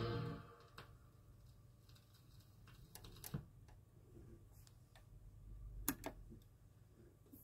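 The last chord of a 1958 doo-wop 45 dies away within the first second. Then the stylus rides the spinning vinyl single in faint surface noise, with scattered clicks and ticks.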